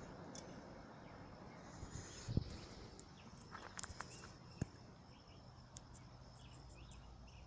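Faint outdoor ambience with small birds chirping now and then, and a few light knocks, the loudest a single thump about two seconds in.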